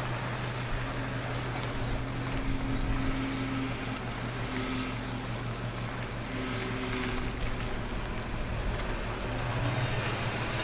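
A 1978 Ford F-150's 351 V8 running steadily at low speed as the truck rolls slowly along and pulls up.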